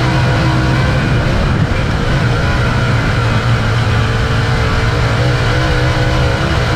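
Dirt late model V8 engine running hard on track, heard from the cockpit, loud and steady with its pitch wavering slightly as the car goes through the turns.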